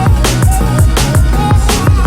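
Background music with a steady beat, deep bass hits and ticking hi-hats under a melody.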